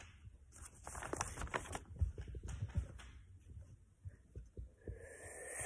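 Rustling and soft scattered clicks of things being handled and rubbed right against the phone's microphone.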